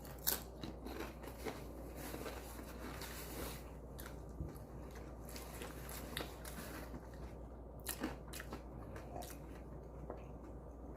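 Close-up chewing and crunching of a crisp fried corn-tortilla tostada, with sharp crunches scattered through it, the clearest just after the start and about eight seconds in.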